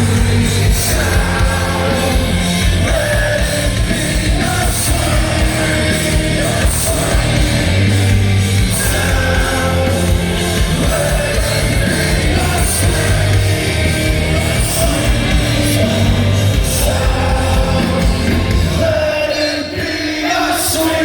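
Live hardcore band playing loudly, with distorted guitars, bass and drums under sung and shouted vocals. About two seconds before the end the bass and drums drop out, leaving the guitars and voices.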